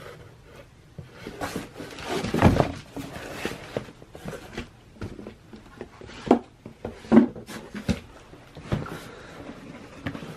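A sneaker box being opened and its contents handled: cardboard and paper rustling, with scattered knocks and a longer rustle about two seconds in.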